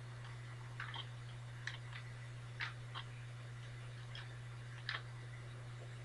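Rubik's Cube layers being twisted by hand: faint, irregularly spaced plastic clicks, about ten over six seconds, over a steady low hum.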